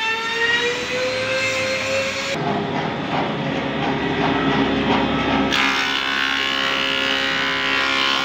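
A wood thickness planer running as boards are fed through it: a steady motor hum under the noisy rasp of the cutter head taking wood off. Before it, for about two seconds, comes a shop machine's whine slowly rising in pitch.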